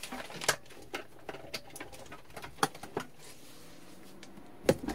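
Scattered light clicks and taps, irregular, with a sharper knock near the end.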